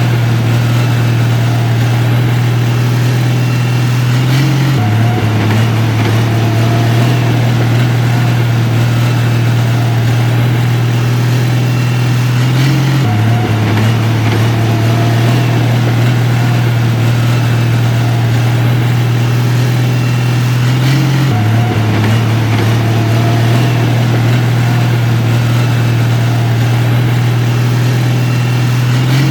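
Heavy construction machine's diesel engine running steadily with a deep hum. The sound repeats itself about every eight seconds, with a small jump in the hum each time.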